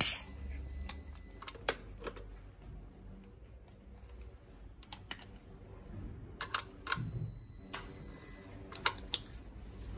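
Scattered light clicks and knocks of hands working on an engine's compression tester: the gauge hose fitting is being moved between spark-plug holes. Low steady hum underneath.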